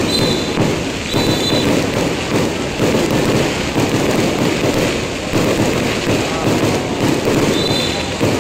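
Fireworks going off in a dense, continuous crackle of rapid pops and bangs.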